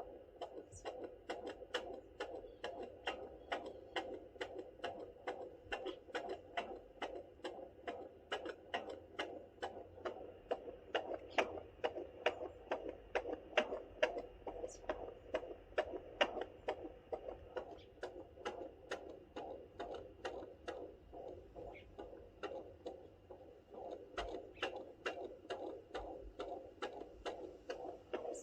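Fetal heartbeat picked up by a handheld fetal doppler and played through its small speaker: a fast, even train of whooshing pulses at about 135 to 140 beats a minute.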